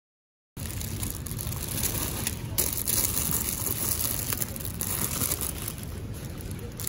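Clear plastic produce bag around a bunch of pak choy crinkling as it is handled, over a steady low rumble; the sound starts suddenly about half a second in.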